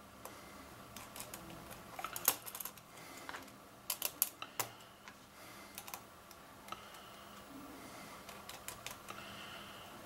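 Light clicks and taps of small machine screws and nuts being threaded into the corner holes of a circuit board by hand, with the board knocking lightly on the table. The clicks come irregularly, bunched about two seconds in and again about four seconds in.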